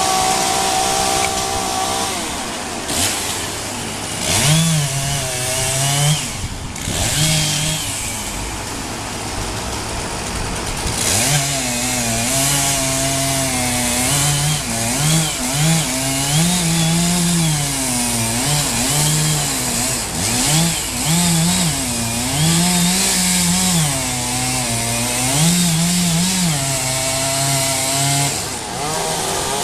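Two-stroke chainsaw cutting into a pine tree. Its engine pitch rises and falls again and again as the throttle is worked, more often in the second half.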